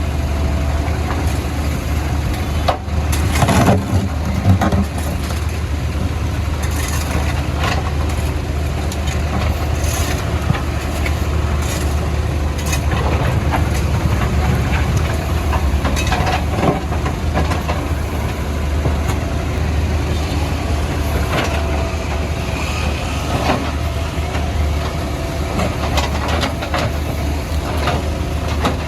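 Caterpillar 462F backhoe loader's diesel engine running steadily under load, with scattered knocks and scrapes as it breaks up the road surface; the loudest knocks come in a cluster about three to five seconds in.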